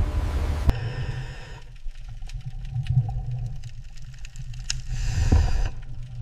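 A brief loud rush of churning, spraying water cuts off under a second in. It gives way to underwater ambience: a deep rumble with a faint steady hum and scattered clicks and ticks, swelling briefly near the end.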